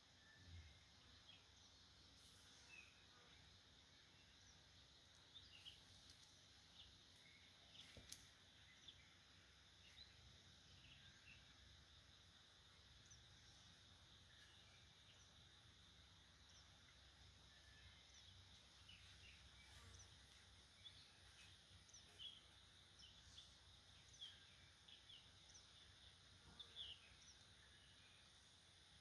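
Near silence: faint outdoor ambience with scattered short, high bird chirps throughout and a few faint clicks.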